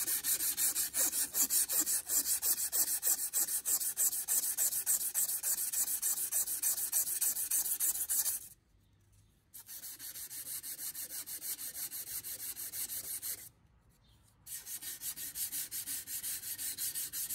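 500-grit wet-and-dry sandpaper, lubricated with WD-40, rubbed in quick back-and-forth strokes along the steel spine of a Spyderco knife blade to round it over. The strokes stop twice for about a second.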